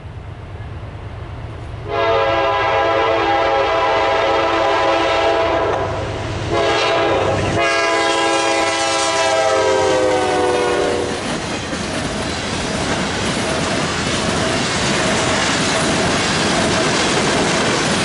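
Nathan K5LA five-chime horn on a Norfolk Southern C44-9W (Dash 9) locomotive blowing two long, loud chords, about two seconds in and again near six seconds. The second chord drops in pitch as the locomotive passes at speed. Then the loaded rail train's cars roll past with a steady rush of wheel and rail noise.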